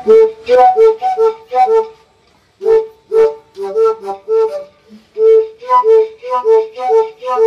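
A set of tuned hollow pipes called organ pipes, played by tapping, sounding a quick run of short hollow pitched notes. Each note starts with a sharp tap, and the pitch shifts a little from note to note. There is a brief break about two seconds in.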